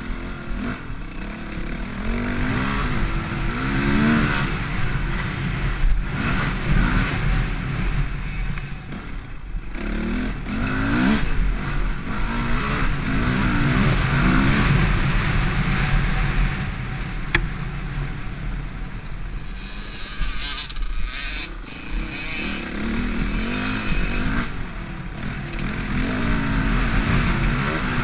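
Off-road dirt bike engine heard from the rider's position, its pitch rising and falling over and over as the throttle is opened and closed along a rough trail.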